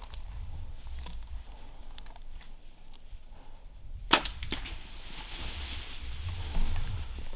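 A bow shot on a hog: one sharp crack about four seconds in, followed by two or three smaller clicks. Right after it comes a rushing rustle of hogs bolting through dry leaves.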